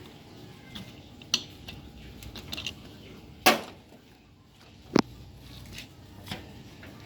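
Metal tools and parts being handled: scattered light clinks, then a loud ringing clank about halfway through and a sharp knock a second and a half later.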